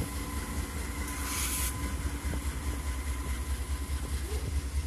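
Diesel engine of a Union Pacific GE wide-cab locomotive, the rear distributed-power unit of an intermodal train, rumbling deeply as it rolls past. A short hiss comes about a second in.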